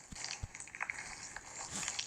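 Slime being squished and poked by hand, with irregular sticky clicks and small crackles.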